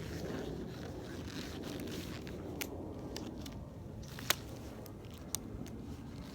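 Close handling noise, rustling and scraping, broken by three sharp clicks, the loudest about four seconds in.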